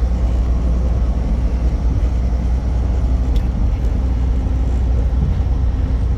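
Steady low rumble of a semi truck's engine and tyres on the road while cruising.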